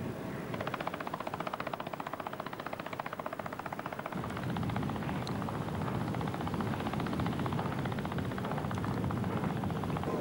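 Steady mechanical drone of a motor ship's machinery heard from the open deck. It pulses fast and evenly for the first few seconds, then settles into a steadier rushing rumble.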